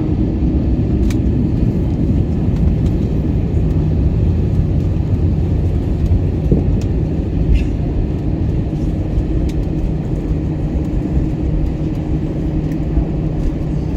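Airbus A321 jet engines and airframe rumble heard from inside the passenger cabin: a loud, steady low rumble, with a steady engine hum that firms up about four seconds in, as the airliner lines up for its takeoff.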